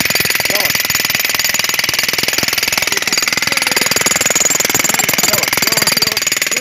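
A jackhammer breaking concrete, hammering rapidly and steadily without a break.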